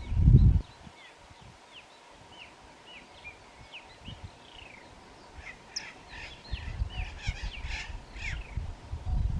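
Birds calling in a run of short, falling high notes that grows denser and louder in the second half. Low rumbling thuds on the microphone come in just after the start, where they are the loudest sound, and again through the second half.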